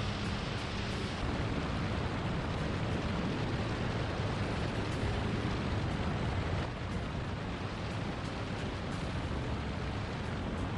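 Homemade light aircraft's engine and propeller running steadily in flight, heard from an onboard camera with heavy wind rush over the microphone; a little quieter from about two-thirds of the way through.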